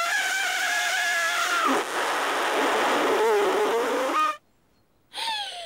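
A child blowing hard through pursed lips in a failed attempt to whistle: a long breathy, spluttering blow, spraying spit, with no clean whistle tone. It cuts off suddenly about four seconds in.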